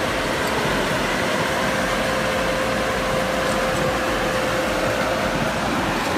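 A forestry skidder's 9.0-litre diesel engine running steadily, with a steady whine that fades out near the end.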